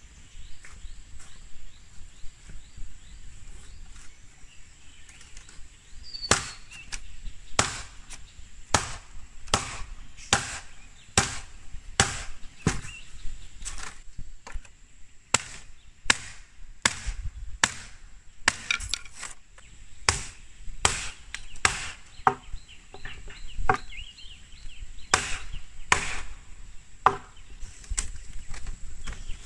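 Bamboo being chopped with a blade: sharp, woody chops, light at first, then strong strokes about once a second from about six seconds in, some coming in quicker runs.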